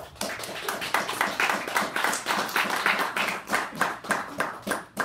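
Applause from a small audience: many hands clapping together, thinning out and stopping near the end.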